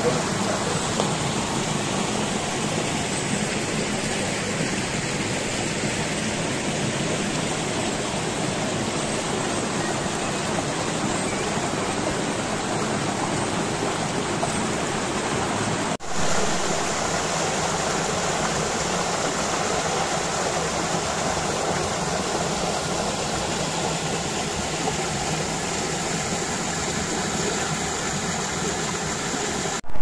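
Forest stream rushing and splashing over rocks and a small cascade in a steady flow. It breaks off for a moment about halfway through and comes back with more hiss and less low rumble.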